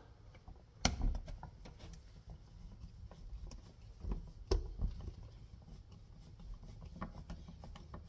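Hand screwdriver driving the bottom mounting screw of a 220 V dryer receptacle into a plastic electrical box: faint scraping and light clicking, with two sharper knocks, one about a second in and one about halfway through.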